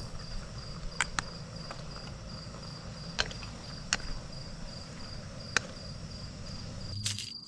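Crickets chirping in a steady, evenly pulsed trill, over a low steady hum, with a few sharp clicks of a spatula against the cooking pan.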